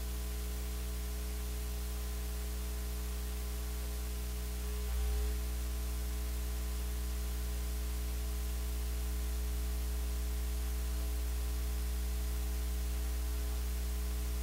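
Steady electrical mains hum with a constant hiss on the feed, with no other sound; a brief low bump about five seconds in.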